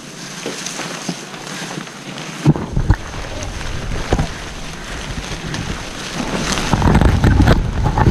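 Low rumbling noise on the microphone that sets in about two and a half seconds in and builds steadily louder, with scattered light rustles and clicks.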